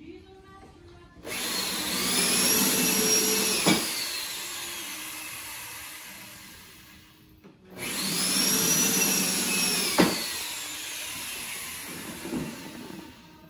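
Power drill boring dowel holes into the joints of a wooden window sash, in two runs of about five seconds each. In each run the motor whine jumps up at the start, then sinks slowly in pitch and fades as the bit goes deeper, with a sharp click partway through.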